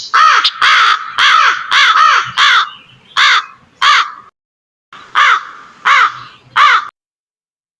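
Crow cawing loudly: a run of about seven harsh caws, a pause of about a second, then three more caws that stop abruptly.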